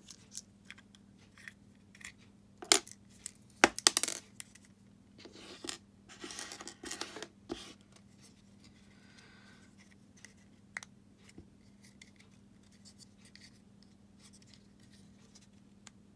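Plastic key fob shell of a Fiat 500 flip key being pried apart by hand: a few sharp plastic clicks and snaps about three to four seconds in, then a stretch of scraping and rubbing, then a few light ticks.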